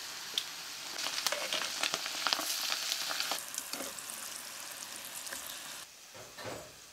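Flour-coated chicken skins deep-frying in a pot of hot oil, sizzling and crackling with many small pops as tongs stir the pieces. The frying sound drops away about six seconds in.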